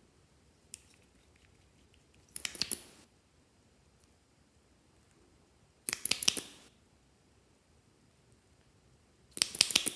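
A liquid glitter makeup tube and its wand applicator being worked: a small click near the start as the cap comes off, then three short bursts of sticky, crackling squelches, each under a second, as the wand is worked in the tube and on the clear slime.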